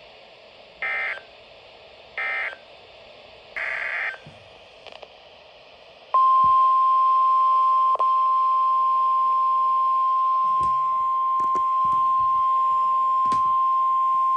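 EAS/SAME digital alert data from a NOAA Weather Radio broadcast: three short warbling bursts of data tones, then, about six seconds in, the steady 1050 Hz weather-radio warning alarm tone starts and holds. The tone is the alert that comes just before a new warning is read.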